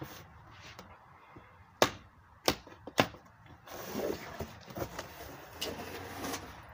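Cardboard box of an inflatable kayak being handled and opened: three sharp snaps close together about two to three seconds in, then a stretch of cardboard scraping and rustling.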